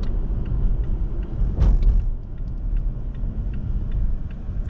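Cabin noise of a 2017 Toyota Tacoma's 3.5-litre V6 pickup on the move: a steady low engine and road rumble, with a light regular ticking and one brief louder rush about a second and a half in.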